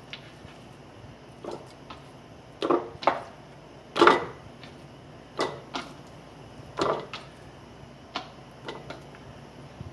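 Kitchen knife knocking on a plastic cutting board as raw chicken breast is cut into chunks, with the loudest thud about four seconds in as a chunk drops through a plastic canning funnel into a glass jar. About a dozen short knocks at an irregular pace.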